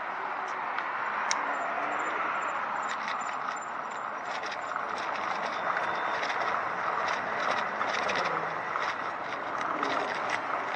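A recumbent cycle rolling along: a steady rush of tyre and wind noise with scattered light clicks.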